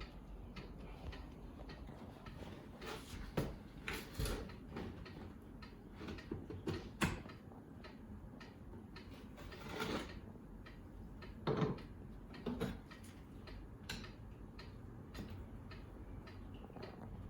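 Hand tools working on an old wooden window sash: scattered knocks, clicks and short scrapes of metal against wood, bunched in a handful of bursts through the middle.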